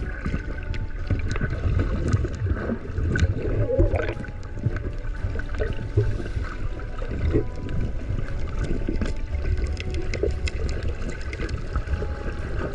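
Underwater sound picked up by a submerged camera beside a net full of trevally: a dense low rumble of churning water with many small clicks and crackles, and a faint steady whine underneath.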